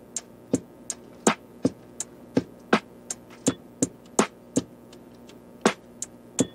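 Background music with a sparse beat of sharp drum-machine hits, about two to three a second over faint sustained tones, pausing for about a second two-thirds of the way through.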